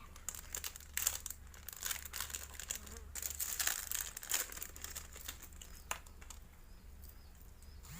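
Plastic lure packaging crinkling as it is handled, in irregular crackly bursts through the first half, then a single sharp click about six seconds in.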